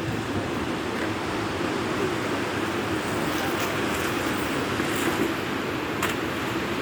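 Steady rushing noise of sea surf breaking on the shore.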